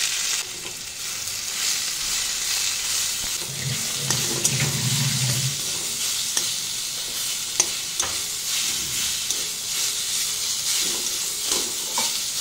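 Boiled susuni shak (water clover greens) sizzling in mustard oil with fried garlic in a metal wok, stirred with a steel spatula that scrapes the pan and clicks against it now and then.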